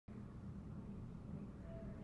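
Faint room tone: a low, steady background hum with nothing else going on.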